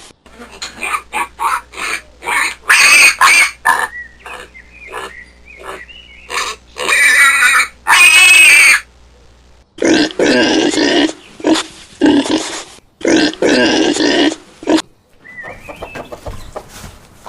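Pigs grunting and squealing in short repeated calls, with two loud, drawn-out squeals about halfway through and a run of small high squeaks just before them.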